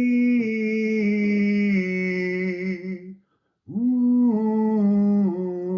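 A single unaccompanied voice sings long held notes in two phrases, with a short break about three seconds in. The pitch steps down from note to note in each phrase. This is sound-healing toning, a path of notes from B downward.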